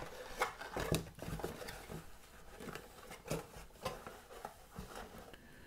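Faint handling noises of cardboard and foam packaging: a few scattered light clicks and rustles.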